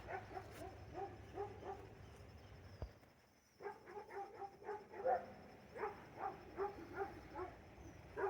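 A dog giving a run of short, high yips and whines, several a second, with a brief pause about three seconds in.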